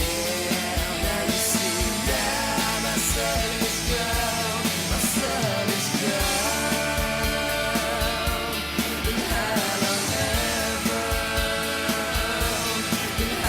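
Background rock music with singing over a steady beat.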